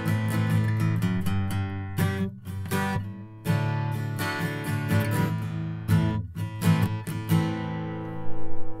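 Acoustic guitar strumming chords as background music. The last chord rings out and fades near the end.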